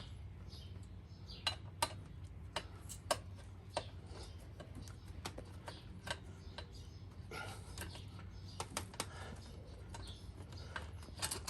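Irregular light clicks and metallic clinks of hand tools working on the seat post hardware of a recumbent tandem trike, a dozen or so sharp taps spread unevenly.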